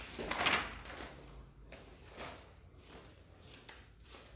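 Handling noise: a short scrape about half a second in, then a few faint rustles and clicks.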